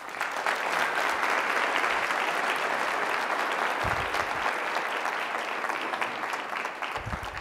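Audience applause in a hall, starting abruptly and steady, then thinning out near the end.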